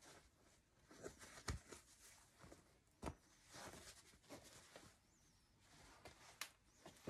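Faint rustling of clothing being handled, with three sharp clicks about a second and a half, three seconds and six and a half seconds in.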